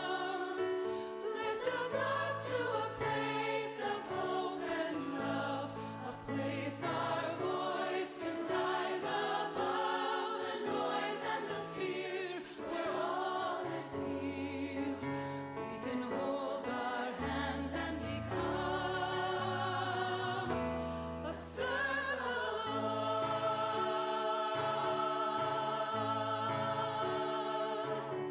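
Background music: a choir singing a slow song over held low accompaniment notes.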